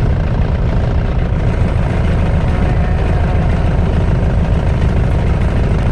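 Car driving slowly on a flat tire, heard from inside the cabin: a steady low rumble with a fast, helicopter-like thumping from the deflated tire.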